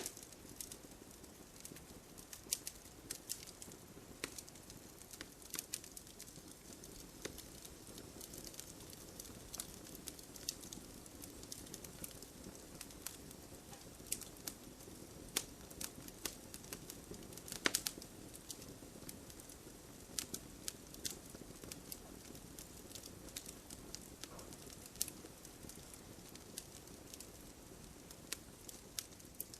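Wood fire burning logs, crackling steadily with frequent sharp pops and snaps over a soft low rush of flame; the loudest pops come a little after the middle.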